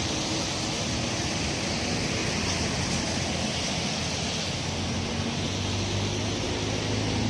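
A river in flood, its fast floodwater rushing with a steady, even sound.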